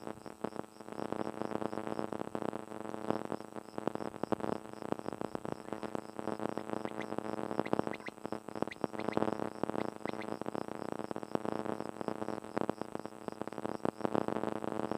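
Synthesizer music with a steady held drone and rapid pulsing.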